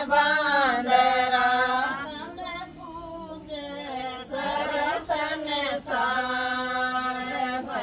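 A group of women singing a Hindi devotional bhajan together in long, held notes, with a brief softer stretch between lines about three seconds in.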